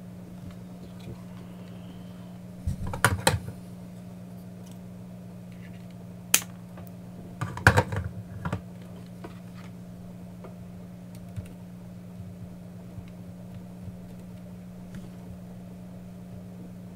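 Scattered clicks and short bursts of clatter from a soldering iron and small tools being handled and set down on a silicone work mat during desoldering, over a steady low electrical hum.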